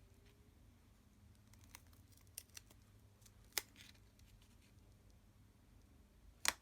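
A few scattered sharp clicks from hands working with paper and craft supplies, two of them louder, about three and a half seconds and six and a half seconds in, over a faint steady room hum.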